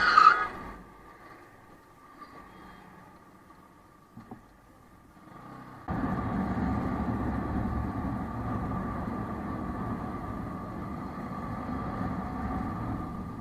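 Riding noise picked up by a camera on a Bajaj Pulsar NS200 motorcycle: engine and road and wind noise, with a steady thin whine running under it. A loud brief burst comes right at the start, the sound drops away to a quieter stretch, and the steady riding noise comes back suddenly about six seconds in.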